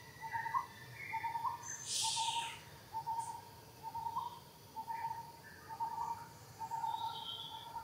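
A bird calling a steady series of short notes on one pitch, about one a second. A brief hiss comes about two seconds in, and a short, higher whistled note near the end.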